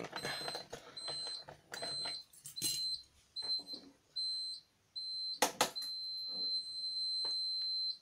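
High-pitched electronic beeping from a Pertronic fire alarm system, a short beep about every two-thirds of a second, then two sharp clicks about five and a half seconds in, after which the tone sounds continuously and cuts off suddenly at the end.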